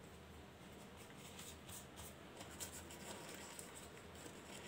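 Faint, irregular rustling and crinkling of thin warqa pastry sheets as hands fold and tuck their edges over the pastilla.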